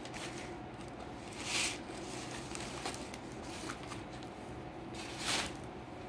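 Quiet room tone with a steady low hum, broken by two brief soft swishes, one about a second and a half in and one near the end.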